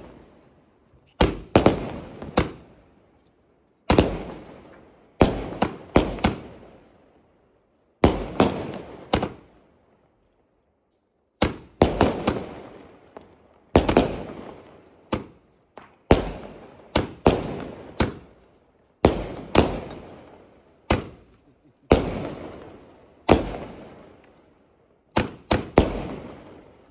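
A 240-shot fireworks cake firing its shots: a long run of sharp bangs, singly and in quick clusters of two or three, each trailing off in a short echo, with a brief lull about ten seconds in.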